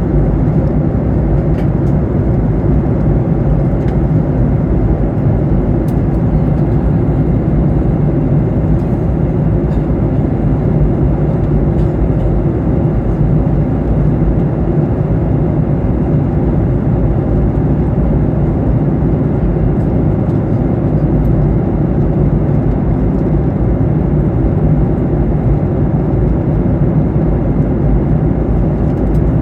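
Steady cabin noise of a Boeing 737-800 in flight, its CFM56 jet engines and rushing airflow heard from inside the cabin as a low, even rumble.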